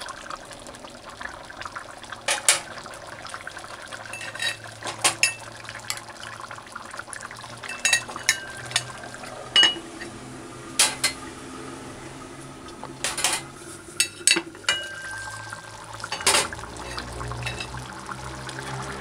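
A metal slotted spoon clinking and scraping against an aluminium stew pot and its lid, a dozen or so sharp clinks that ring briefly. Under them, a thick curry stew bubbles as it simmers and is stirred.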